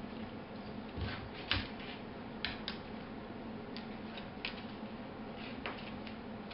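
Dogs' claws clicking and tapping on a hardwood floor as an adult Bouvier des Flandres and a puppy shift about, in scattered, irregular clicks over a low steady hum.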